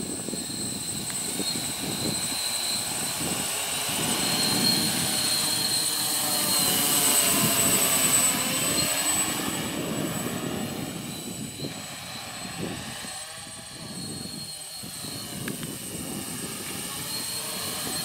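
Heavy X8 coaxial multirotor's eight electric motors and propellers lifting off and climbing into a hover: a steady high motor whine over a rushing propeller wash. It swells to its loudest in the middle of the climb, then eases off as the craft rises away.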